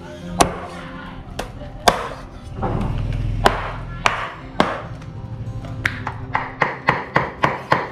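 Kitchen knife chopping goose meat on a cutting board. The strikes are scattered at first, then about six seconds in they turn into a faster, regular run of about three chops a second. Music plays underneath.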